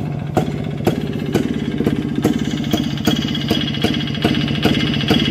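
1985 Rajdoot 175's single-cylinder two-stroke engine idling, a steady low drone with a sharp knock about twice a second.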